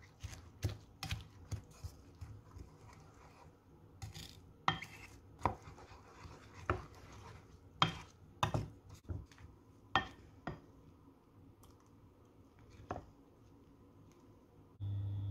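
Wooden spoon beating eggs with chopped onion and herbs in a ceramic bowl: irregular knocks and clicks of the spoon against the bowl, with soft scraping between them, thinning out after about thirteen seconds. A steady hum starts abruptly just before the end.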